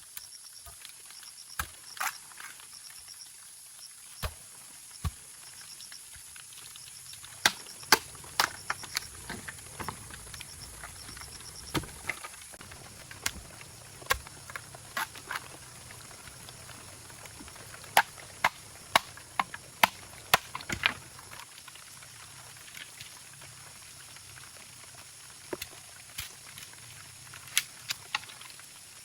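Irregular sharp knocks and clicks, sometimes in quick clusters, over a faint steady hiss.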